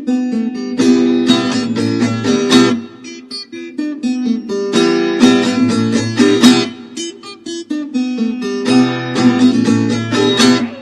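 Acoustic guitar playing an instrumental intro: three bursts of strummed chords about four seconds apart, with quieter picked notes in between.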